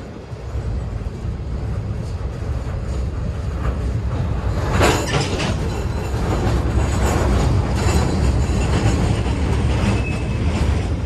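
Freight cars (gondolas and covered hoppers) rolling past on steel rails: a steady low rumble of wheels on track that grows louder over the first few seconds. Sharp clicks and clanks come as wheel sets pass, thickest about five seconds in, with a brief high squeal near the end.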